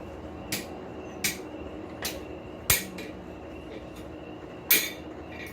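Light metal-on-metal clinks and taps of blacksmithing tools on steel, five of them spaced irregularly, the last two loudest, over a steady background hum.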